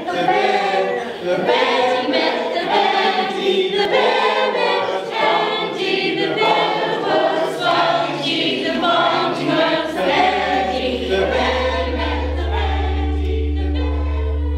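A choir of children's and older adults' voices singing a song together. About two-thirds of the way through a low steady hum comes in, and near the end the singing gives way to held notes of background music.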